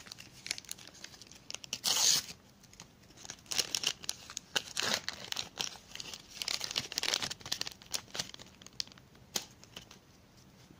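A paper NBA sticker pack being torn open and its wrapper crinkled, in a series of short tearing and rustling bursts, the loudest about two seconds in.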